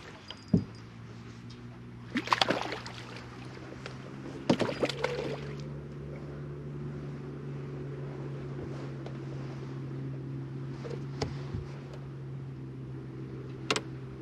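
Bow-mounted electric trolling motor humming steadily, growing stronger about four and a half seconds in, while a hooked largemouth bass splashes at the surface beside the boat and is lifted aboard, with sharp knocks and splashes several times.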